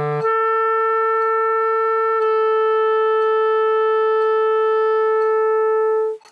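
B-flat clarinet slurring from low E up to the twelfth above, written B, and holding it. About two seconds in, the held B drops slightly in pitch, which fits letting go of the register key and holding the note as an overtone by voicing alone, a little out of tune as overtones on the low notes are. The tone stops cleanly near the end.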